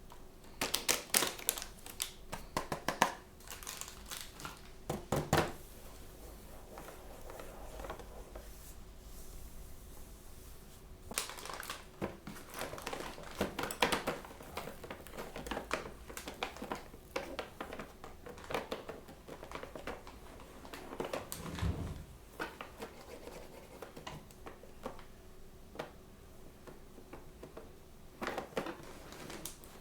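Blind-bag and box packaging handled and opened: plastic crinkling and tearing in irregular bursts, busiest in the first few seconds, in the middle and near the end.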